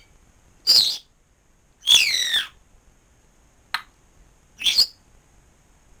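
African grey parrot giving loud whistled calls: three short calls, the middle and longest one a falling whistle about half a second long, with a brief click between the second and third.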